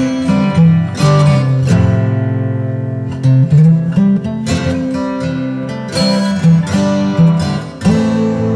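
Background music on acoustic guitar: plucked and strummed chords, each struck sharply and left to ring out.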